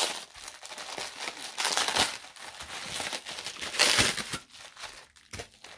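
Plastic packaging crinkling and rustling in irregular bursts as a wrapped crystal is unrolled from it by hand, loudest about two and four seconds in and dying down near the end.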